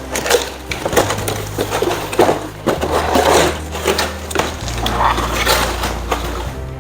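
Irregular crackling and rustling noises, like something being handled or crumpled, over a low bass line that steps to a new note every second or two.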